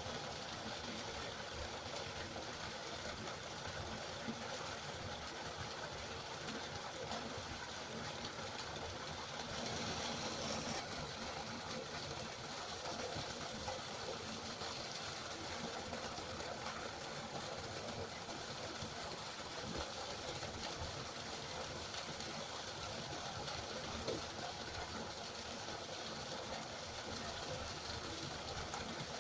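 Steady rushing of a river, an even continuous water noise.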